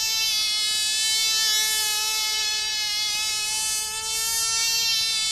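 A tiny model-aeroplane engine running at full power with a high, steady buzzing whine while it pulls a man on a seat round on a tether; its pitch wavers slightly up and down.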